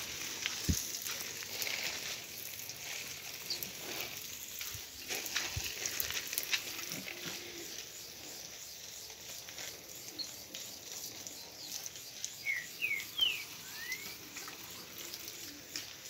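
Garden hose spray nozzle sprinkling water over leaves and plants, a steady hiss and patter. A few short rising chirps come near the end.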